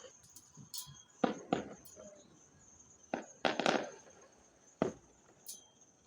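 Fireworks going off: about five sharp bangs at irregular intervals, one pair close together near the middle, with a few short, high crackles between them.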